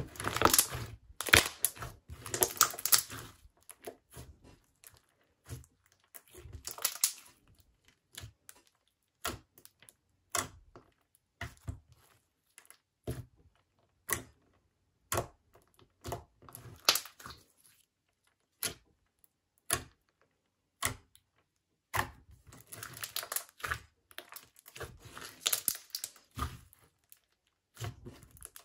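Clear slime packed with small plastic star mix-ins being stretched and pressed by hand, giving sharp bubble pops and crackling. Dense runs of pops come at the start, around seven seconds and again from about 22 to 27 seconds, with single pops in between.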